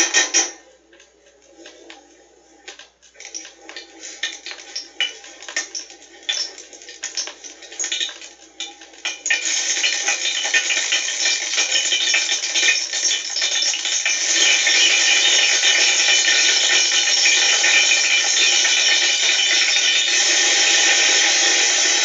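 Typewriters clacking in a typing class. Scattered keystrokes for the first nine seconds or so, then many machines going at once in a dense, steady clatter. It is an old, thin recording with no bass.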